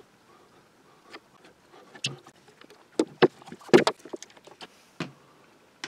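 Handling knocks and clicks of a wooden router base plate and a cordless router being worked with by hand on a workbench: a handful of short knocks, the loudest a close cluster in the middle.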